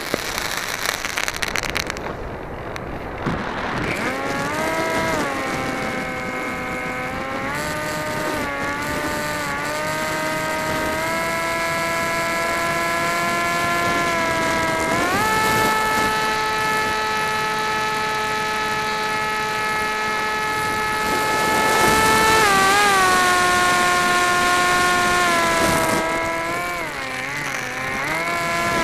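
RC flying wing's motor and propeller heard from the camera on board, a steady whine whose pitch dips and climbs as the throttle changes. The whine sets in a few seconds in, jumps up in pitch about halfway and holds there, then wavers again near the end.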